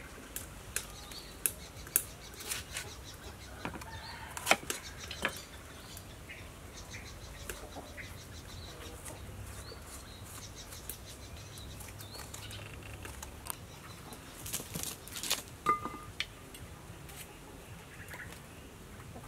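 Irregular clicks, knocks and rustling of vegetable preparation: a knife cutting and scraping white bitter gourd over a wooden chopping board, and hands handling leafy greens in a woven bamboo basket. A few knocks stand out louder than the rest.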